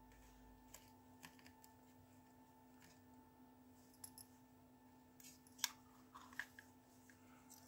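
Near silence with a faint steady hum, broken by faint clicks and ticks of a small Phillips precision screwdriver working the screws of a plastic wireless-earbud charging case, with a few sharper plastic clicks about two-thirds of the way through as the case is handled.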